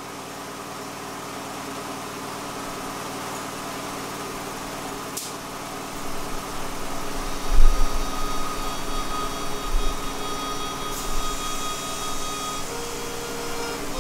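Workshop air compressor running steadily, its hum slowly growing louder. There is a single click about five seconds in, and low handling thumps from about halfway as a hose-fed air tool is readied.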